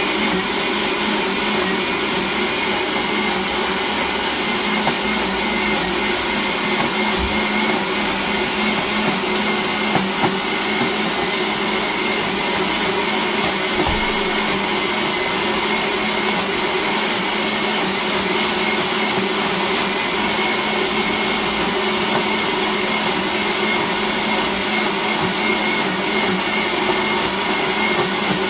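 Countertop blender motor running steadily at high speed, blending a smoothie smooth, with a steady whine over the noise of the jar's contents.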